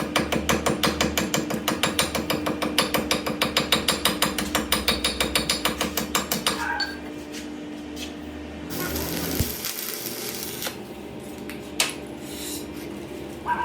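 A workshop machine running with a fast, even clicking over a steady hum. The clicking stops about six seconds in, and the hum falls away and stops about nine seconds in, as when the motor is switched off and spins down. A few scattered knocks follow.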